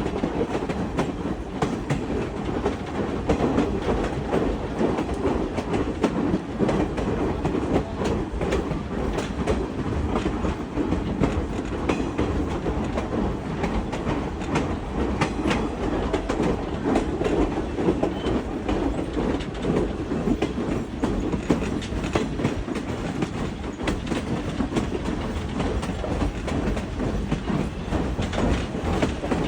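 A train rolling along the track: a steady rumble of wheels on rails, with frequent clicks and knocks.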